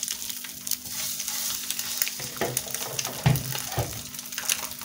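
Hot oil sizzling and crackling in a frying pan as whole boiled eggs coated in curry powder fry. A few dull knocks come a little past halfway, as eggs are dropped into the pan.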